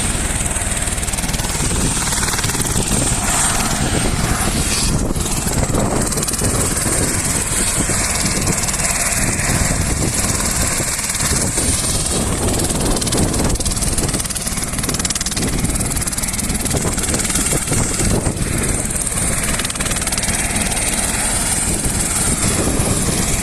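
Helicopter running close by: a loud, steady rotor and engine noise with a thin high whine over it.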